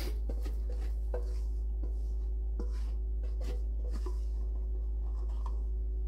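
A whisk scraping and knocking against a metal mixing bowl as thick cornbread batter is pushed out into a cast iron skillet: irregular light clicks and scrapes, thinning out after about four seconds. A steady low hum runs underneath.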